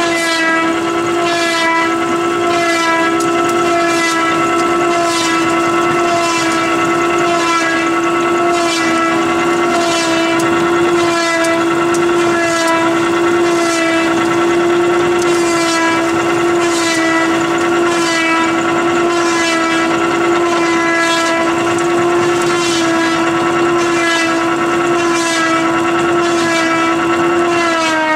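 A fiber drainer and scrubber machine running: a loud, steady mechanical whine with a faint swishing stroke about once a second as the rollers work the decorticated fiber.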